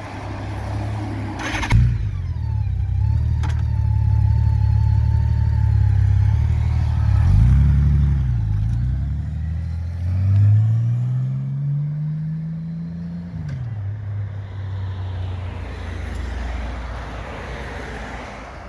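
2014 Honda Valkyrie's flat-six engine through an aftermarket Yoshimura exhaust, idling steadily with a sharp click about two seconds in. The motorcycle then pulls away: the engine note rises and dips briefly, climbs steadily for about three seconds, drops as the throttle eases, and fades as the bike rides off.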